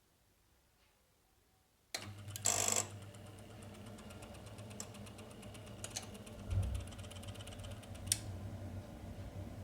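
Ideal C28 Mini combi boiler making its fault noise: about two seconds in, a grinding buzz starts abruptly with a loud rattly burst, then runs on as a steady low hum with fast ticking and a sharp click near the end. The intermittent fault sounds like a snagged PC fan and seems to come from around the three-way diverter valve, gas valve and hot-water flow switch.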